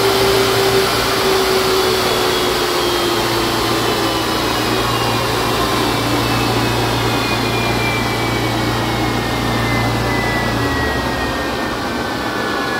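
Westinghouse J34 turbojet running with a loud rushing whine, its pitch slowly falling. A steady low hum underneath cuts off about ten and a half seconds in.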